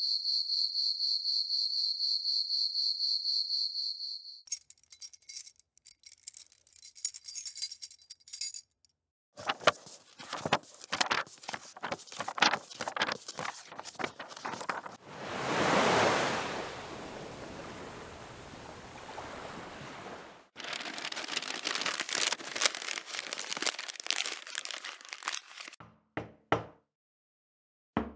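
A series of everyday sound effects in turn. First an insect's steady high trill for about four seconds, then a key chain jingling. Next a run of quick page flips, then an ocean wave washing in and fading back, then paper being crumpled, with a door knock starting at the very end.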